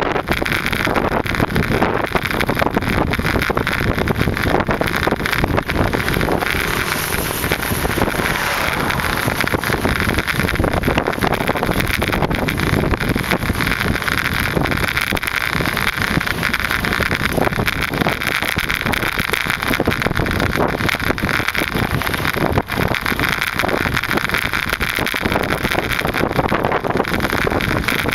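Steady wind rushing over the microphone during a bicycle ride, mixed with road noise.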